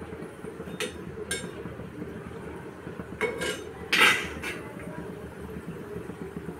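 Dal vadas deep-frying in hot oil in a kadhai, a steady sizzle and crackle, with a metal slotted spoon clinking against the pan several times, loudest about four seconds in.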